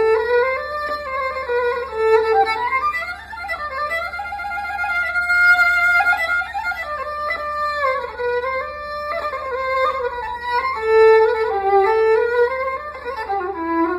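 A solo melody in makam Uşşak played on a bowed string instrument, a single line that slides between long held notes.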